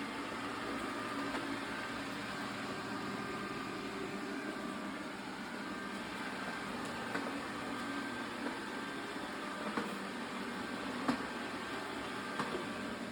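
Xiaomi S20 robot vacuum running steadily, a constant motor and brush whir, with a few brief faint ticks in the second half.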